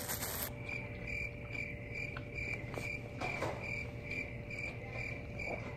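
Crickets chirping in an even rhythm, about three chirps a second, dropped in as an edited sound effect that starts and stops abruptly.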